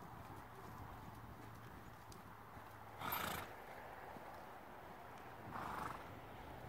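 A horse ridden at a lope on arena sand, its hoofbeats muffled by the footing. Two short, louder horse sounds come about two and a half seconds apart, the first the louder, with a neigh among them.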